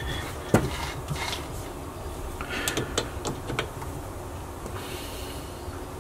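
Metal clicks and knocks from a T-handle key working the screws of a Burnerd Griptru three-jaw lathe chuck as it is tightened up after adjustment, the loudest knock about half a second in, over a steady low hum.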